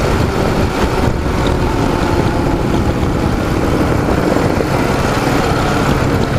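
Ural motorcycle's air-cooled flat-twin (boxer) engine running steadily under way.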